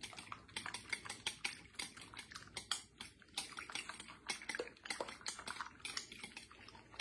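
Fork beating eggs in a ceramic bowl: quick, irregular light clicks of the fork against the bowl, several a second.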